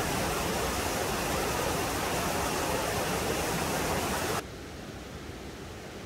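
A mountain stream rushing: a steady, loud hiss of running water that cuts off suddenly about four and a half seconds in, leaving a much fainter hiss.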